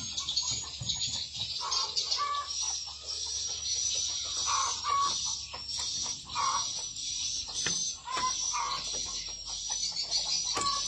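Dense, continuous high twittering of swiftlet calls, with lower, louder calls every second or two. A few sharp metallic clicks from a padlock being handled come near the end.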